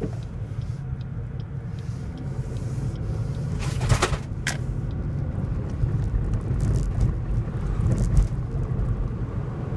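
Car accelerating away from a standstill, heard from inside the cabin: low engine and road rumble that builds steadily, with a couple of sharp knocks about four seconds in as the car goes over bumps in the road.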